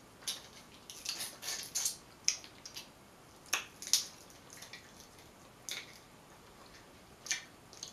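Eating sounds close to the microphone: irregular wet smacks and clicks as crab meat is picked apart with the fingers and chewed, bunched together in the first couple of seconds, then scattered.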